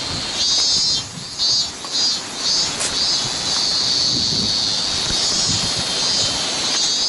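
Cicadas singing in a high, pulsing chorus, their calls coming and going about every half second for the first few seconds and then holding steady, over the steady rush of a waterfall.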